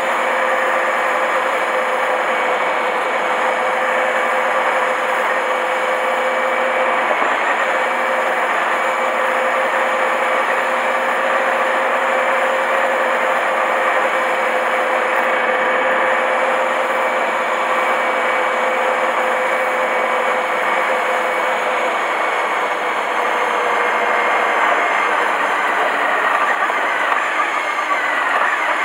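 Honda 250 cc motorcycle engine running at steady revs under way, over a constant rush of wind and road noise. Near the end the engine note drops slightly as the bike eases off.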